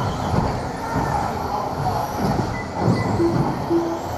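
Several electric radio-controlled two-wheel-drive buggies racing on an indoor carpet track. Their motors whine, rising and falling in pitch as they accelerate and slow through the corners, over tyre and chassis noise.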